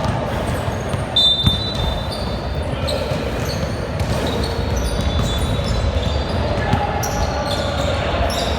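Basketball game in a gym: the ball bouncing on the court and sneakers squeaking in short high chirps, with voices in the background.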